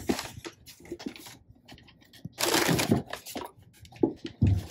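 Tissue paper and cardboard box rustling and crinkling as a leather boot is lifted out, loudest about two and a half seconds in, then a few soft knocks near the end as the boot is set down on a wooden desk.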